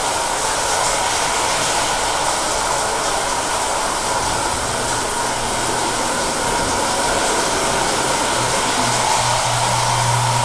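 Shower running hard, a steady rush of spraying water.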